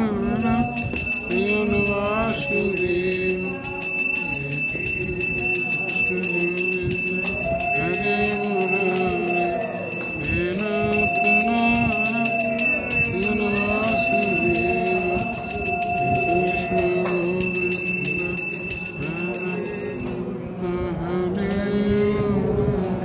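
Devotional singing by a group, with a bell ringing continuously as a steady high ring. The ring stops about three seconds before the end while the singing goes on.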